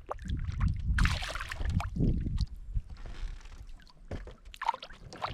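Water splashing and sloshing at the side of a small boat as a hooked trout is brought in without a net, with a few light knocks near the end.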